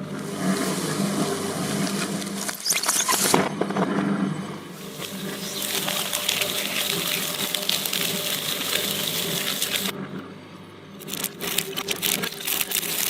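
Electric shredder motor running with a steady hum as Play-Doh is forced through it, in two long spells of dense grinding noise with a brief lull between, then crackling near the end.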